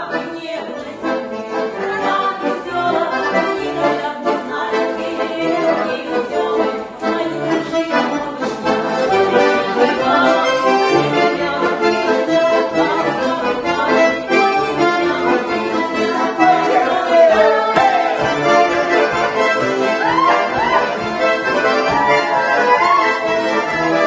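Several garmons (Russian button accordions) playing a lively folk tune together, with voices singing along in the second half.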